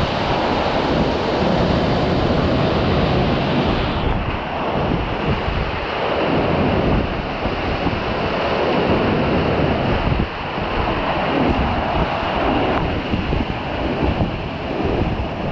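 Wind buffeting the microphone in irregular gusts over a steady rush of water.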